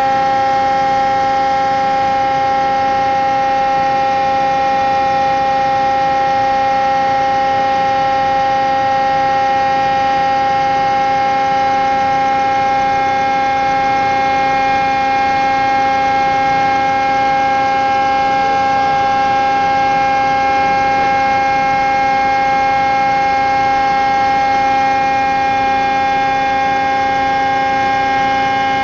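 Steady, loud machine hum with several even pitched tones, unchanging while the robot arm moves.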